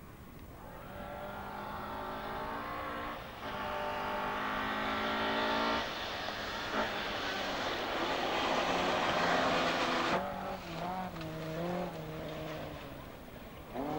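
Rally car engine at full throttle coming up a gravel forest stage, its note climbing and breaking twice, at about three and six seconds in, as it changes up. Engine and gravel noise are loudest as the car passes close by, then the engine note drops lower and wavers as it goes away.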